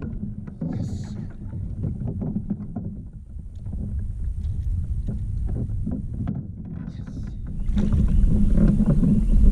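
Knocks and bumps of gear on a fishing kayak over a low rumble, with wind on the microphone growing much louder near the end.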